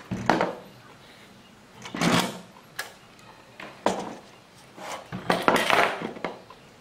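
Sheet-metal amplifier chassis being handled on a workbench: a run of irregular knocks, scrapes and rattles as the case is tilted and set down, with the longest clatter near the end.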